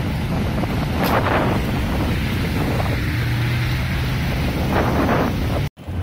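Wind buffeting the microphone over a steady rush of water from the overflowing creek, swelling in gusts. A low steady hum joins about halfway through, and the sound cuts out for a moment near the end.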